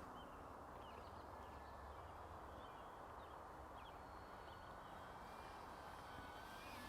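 Near silence: faint outdoor background hiss with a few faint, short high chirps.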